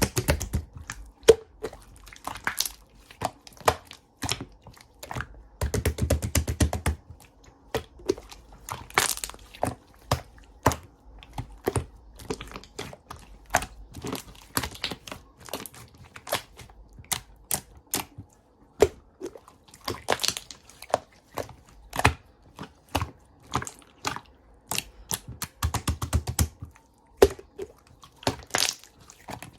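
Close-up handling of small objects: an irregular string of sharp clicks and taps mixed with paper or plastic crinkling, with a few low thuds, one right at the start, one about six seconds in and one near the end.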